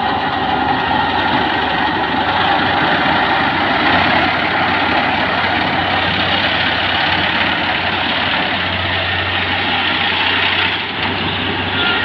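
Kubota PRO588-IG mini combine harvester running steadily, a continuous loud mechanical engine noise.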